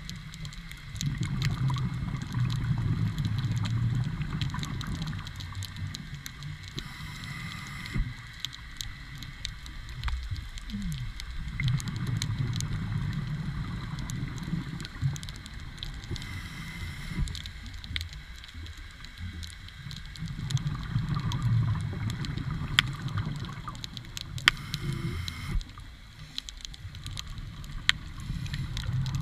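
Scuba diver breathing underwater: a short regulator hiss on each inhale, then a low bubbling gurgle of exhaled air, repeating about every eight or nine seconds, with scattered faint clicks.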